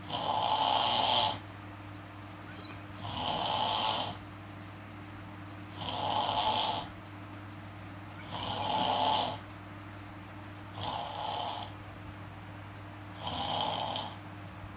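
A person snoring in sleep: six snores about every two and a half seconds, each lasting about a second.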